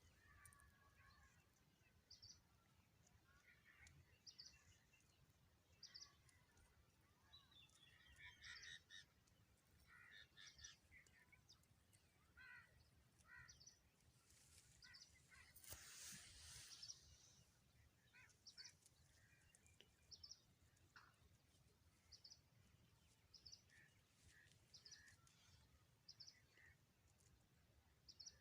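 Faint wild birdsong: several birds chirping, one repeating a short high note every second or two. A brief hiss rises and fades about halfway through.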